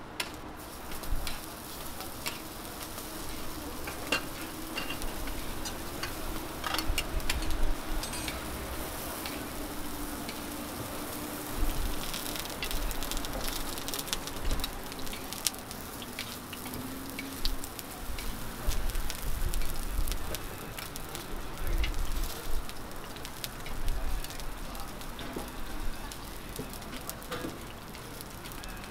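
Millet pancakes (sususbukkumi) sizzling as they fry on a flat steel griddle, with scattered clicks and scrapes of a metal spatula pressing and turning them.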